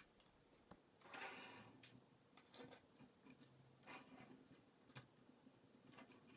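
Faint clicks and rattles of plastic K'NEX rods and connectors being handled and snapped together, with a sharper click about five seconds in.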